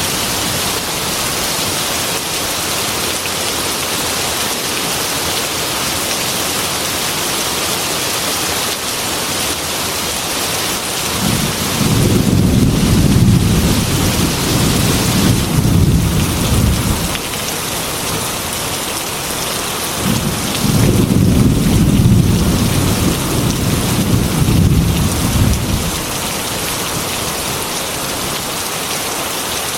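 Heavy rain falling steadily, with two long rolls of thunder, each lasting five or six seconds: the first starts about eleven seconds in, the second about twenty seconds in.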